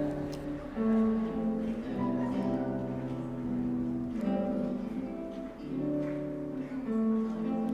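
Background music: sustained melodic instrumental notes, with guitar-like plucked strings, changing every second or so.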